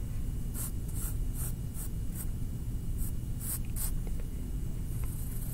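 A drawing pen or pencil scratching on paper in quick short strokes, about eight between half a second and four seconds in, then a longer stroke near the end, as the outline of a cartoon head is drawn. A steady low hum runs underneath.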